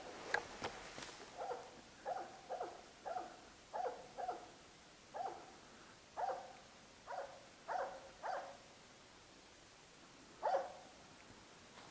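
Jämthund (Swedish elkhound) baying at a moose: about a dozen single barks at an uneven pace, with a longer pause before the last one near the end. A few sharp clicks and knocks in the first second.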